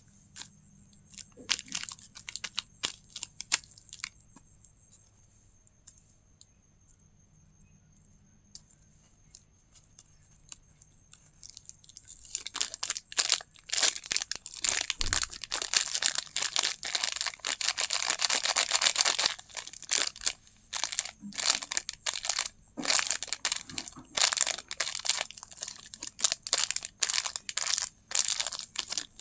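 Candy packaging being opened: a few scattered taps and rustles, a quiet pause, then from about twelve seconds in dense, rapid crinkling and tearing of the wrapper.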